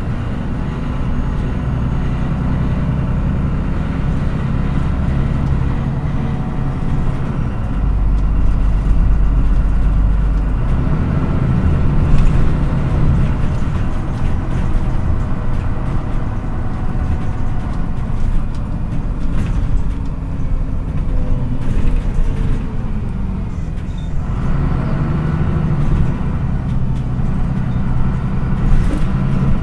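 MAN NÜ 313 city bus heard from inside the cabin while driving: the diesel engine and drivetrain run with a deep rumble that rises and falls with speed, with scattered clicks and knocks from the body. The engine sound drops briefly near the end before picking up again.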